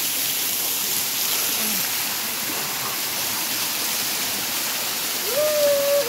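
Small waterfall pouring steadily onto rock, a continuous hiss of falling water. A person's voice calls out briefly near the end.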